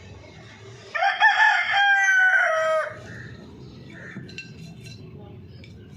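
A rooster crowing once, a call of about two seconds that begins with a few short rising notes and ends on a long, slightly falling held note.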